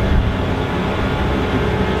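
Fendt 1050 Vario tractor's six-cylinder diesel engine running steadily at idle, with an even low rumble and a steady hum.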